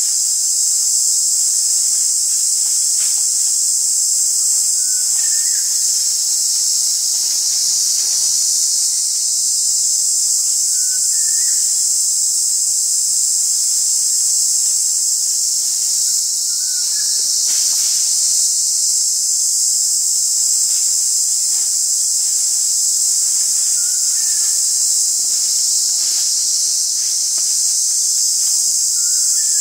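Loud, steady, high-pitched chorus of forest insects droning without a break. A short two-note bird call sounds about every six seconds.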